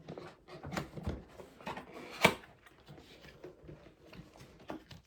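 Power supply box being unpacked by hand: scattered rustles and light knocks of packaging and parts, with one sharp click a little over two seconds in.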